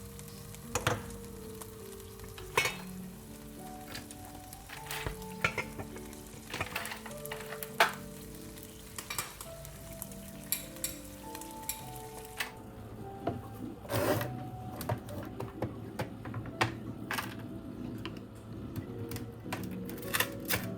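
Food sizzling in a frying pan while it is stirred, with utensils knocking and clinking against the pan every second or so, over soft background music.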